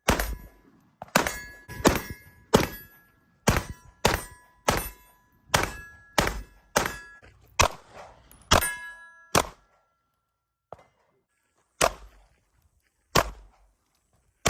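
Rapid gunshots at steel targets, each hit followed by the steel plate's ringing ding: a fast string of about fourteen shots, then a pause of a couple of seconds and a few slower shots near the end.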